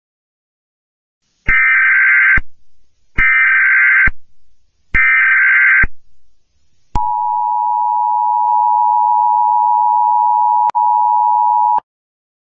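Emergency Alert System tones: three short bursts of warbling data tones, each about a second long, followed by the two-tone EAS attention signal, a steady harsh dual tone lasting about five seconds with a brief click near the end.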